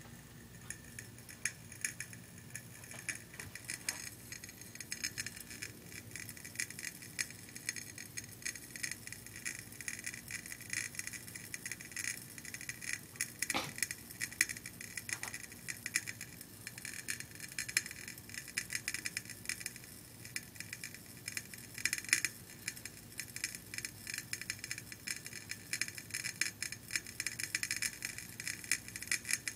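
A faulty light bulb crackling: a fast, irregular stream of fine clicks over a steady high-pitched whine.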